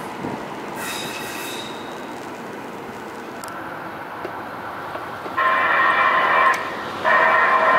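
LA Metro light rail train sounding its horn twice as it approaches a grade crossing: two long steady blasts, the first about five seconds in and the second near the end. A quieter steady rumble of the rail line comes before them.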